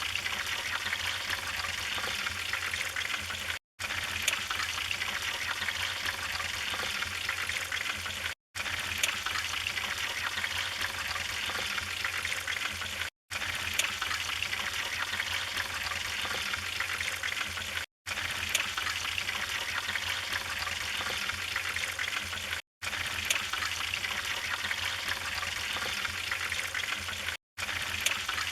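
Wood fire burning in a fireplace: a steady hiss with scattered small crackles and pops. The sound cuts out for an instant about every five seconds, where a short recording is looped.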